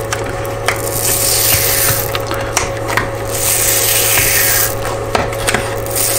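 A worn CCTREE adhesive build-surface sheet being peeled by hand off a glass mirror bed, the glue letting go in several stretches of crackling, rasping noise with small sharp clicks. A steady low hum runs underneath.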